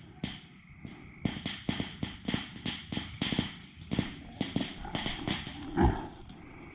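Footsteps crunching through dry brush and undergrowth, about two to three steps a second, with one heavier thump near the end.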